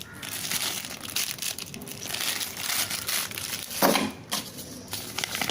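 Packaging crinkling and crackling as it is handled, with a sharper rustle about four seconds in.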